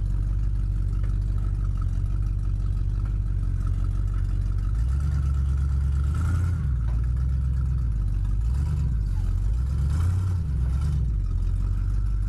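Tow truck's engine running steadily, a low even rumble with a faint steady whine above it.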